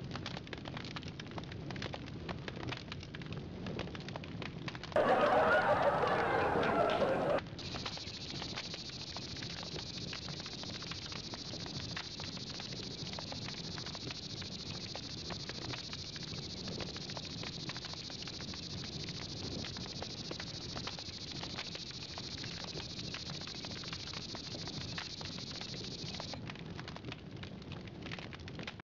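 Wood campfire crackling and popping, with many small sharp snaps. A louder rush of noise lasts about two and a half seconds, starting about five seconds in. After it, a steady high hiss sits over the crackle until near the end.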